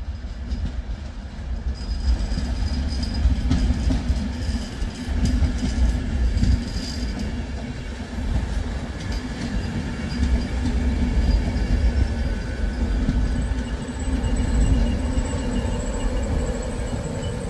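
A train running past on the rails: a steady low rumble with a few sharper knocks in the first half.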